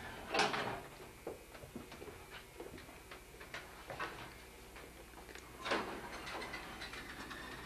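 Light clicks and knocks, with a louder thud just after the start and another about six seconds in.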